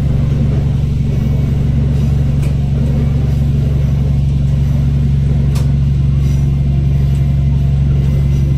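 Diesel railcar running steadily under way, a loud, even low engine drone heard from the cab, with a couple of faint clicks.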